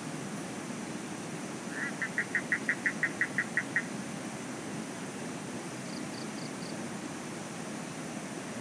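A night animal's call, a rapid run of about a dozen short, even notes, about five a second, lasting some two seconds, over a steady rushing background noise. A few seconds later come four short, higher pips.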